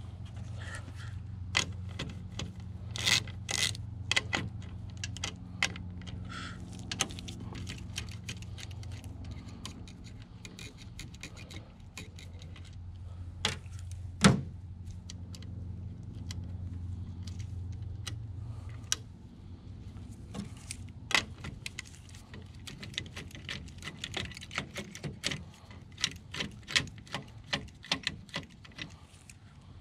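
Hand tools and nuts on a gauge's terminal studs: scattered small metal clicks and clinks that come in quick runs in the last third. A low steady hum underneath is strongest for the first two-thirds.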